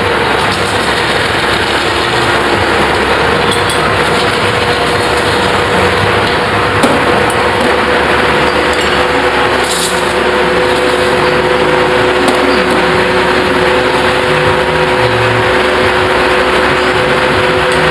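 Metal spinning lathe running steadily with a large metal dish turning on it, giving a loud, even machine noise with a steady hum. A single sharp knock comes about seven seconds in.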